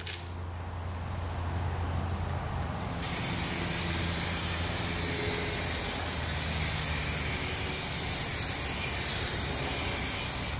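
Aerosol can of 2K clear coat spraying onto a headlight lens: a steady hiss that starts abruptly about three seconds in, laying down the first coat of clear coat.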